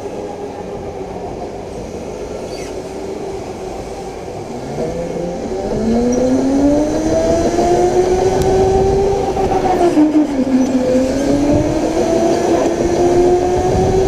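Indoor electric go-kart's motor whining under acceleration. Its pitch rises from about five seconds in, drops briefly near ten seconds as the kart slows, then climbs again, over steady tyre and track rumble.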